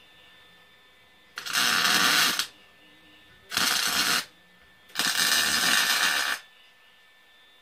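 Electric arc welding on half-inch steel round bar: three short welds, each a loud steady crackle, about a second, half a second and a second and a half long.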